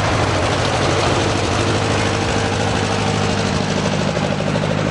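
A vehicle's engine running steadily at low revs close by, with a deep, even hum.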